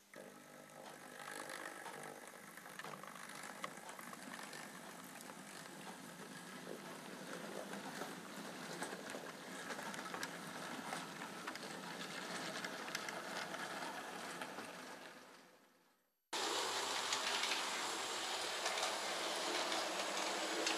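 Model railway train running on the layout's track: a rattle of small wheel clicks that builds over the first couple of seconds and fades away to nothing about fifteen seconds in. About sixteen seconds in, a second, louder running rattle starts abruptly.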